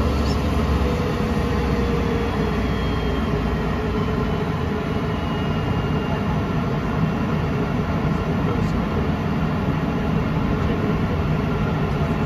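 Cabin noise of a Cessna Citation XLS business jet taxiing: the steady rumble and faint whine of its two Pratt & Whitney PW545B turbofans at low power, heard from inside the cabin.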